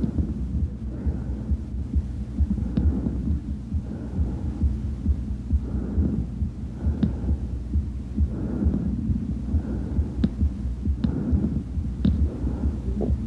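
Chest sounds heard through a stethoscope: breath sounds that swell and fade with each breath over steady low heartbeat thumps and hum, with a few sharp clicks.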